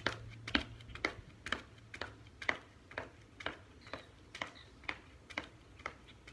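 Sneaker footfalls on concrete from a person skipping: sharp, regular landings about two a second that grow fainter as the skipper moves away.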